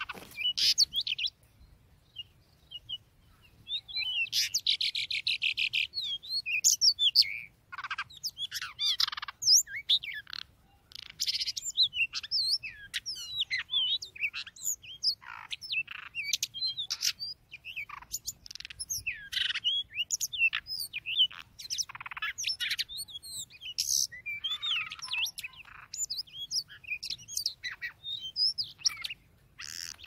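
Magpie-robin song: a busy stream of loud, varied whistles and chirps broken by short pauses, with a rapid trill about four seconds in.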